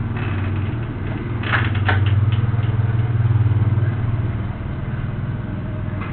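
A steady low hum, in the manner of an engine idling, strongest until about four and a half seconds in, when it drops somewhat. A few brief sharp clatters sound about one and a half to two seconds in.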